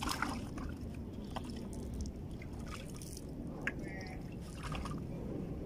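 Water trickling and dripping as hands are rinsed over a bucket, over a steady low rumble, with a few light clicks.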